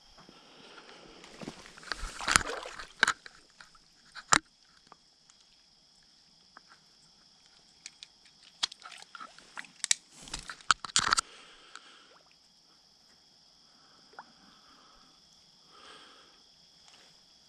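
Crickets trilling steadily in two high continuous tones, broken by irregular knocks, clicks and short rustling or sloshing handling noises twice, the loudest clatter about two to four seconds in and again about eight to eleven seconds in.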